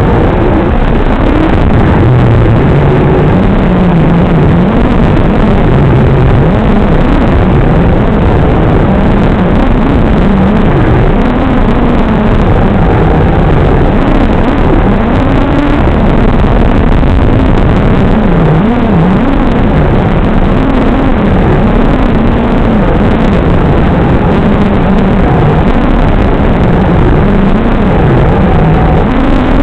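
Cobra Gold Edition brushless motors and propellers of an FPV quadcopter in flight: a constant loud buzz and rush whose pitch rises and falls as the throttle changes.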